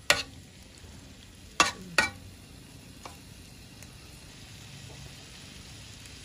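Metal spatula knocking and scraping against a wok while stirring tofu and potato in a coconut-milk sauce, with three sharp knocks in the first two seconds and a lighter one about a second later. Between and after them the sauce sizzles quietly as it simmers.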